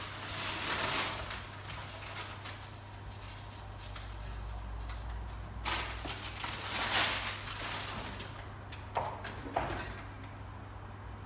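Kitchen handling sounds: rustling as pasta is tipped from its packet into a pot of boiled water and the packet is handled again a few seconds later, then a drawer slid open with a couple of clicks near the end, over a steady low hum.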